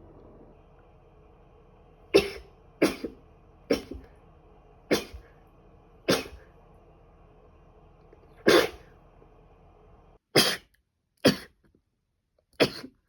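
A woman with a cold coughing repeatedly: about nine short, sharp coughs, some single and some close together, a second or two apart.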